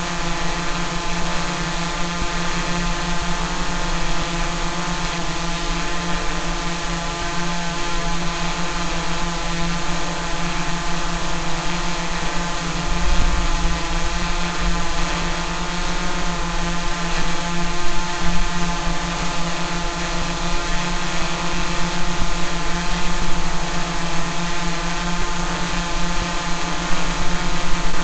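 Multirotor drone's propellers humming steadily, a continuous buzzing whine with many overtones and small swells in loudness.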